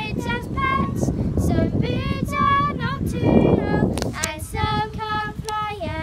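Two young girls singing a song together, in held notes that slide from one pitch to the next.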